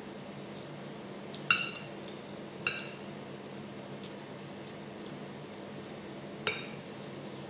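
Metal spoon and fork clinking and scraping on a ceramic plate while eating: a handful of sharp clinks, the loudest about six and a half seconds in, over a steady low hum.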